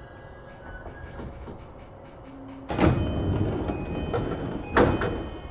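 Passenger doors of an E233 series 5000 electric train at a station stop: two loud, sudden knocks about two seconds apart, with louder noise between them and a short chime tone.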